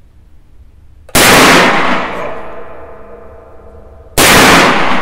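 Two shots from a Rexio Super 410 over-under .410 shotgun-pistol, one from each barrel, about three seconds apart: a sharp blast about a second in and another near the end. Each blast rings on in a long, echoing decay in the small range room.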